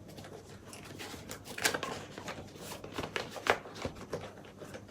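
Cardboard box packaging being cut with a knife and pulled open: irregular scraping and rustling with scattered sharp clicks, the sharpest about three and a half seconds in.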